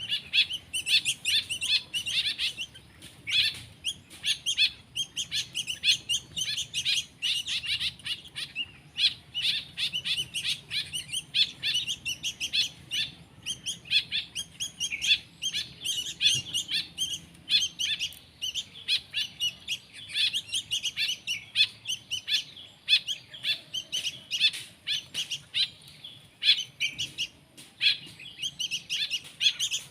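Young hand-reared songbird chicks chirping rapidly and without pause, many short high calls in quick succession, like nestlings begging to be fed.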